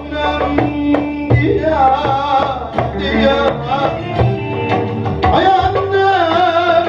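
A man singing a Turkish folk song into a microphone, holding long wavering notes, over electronic keyboard and a drum rhythm.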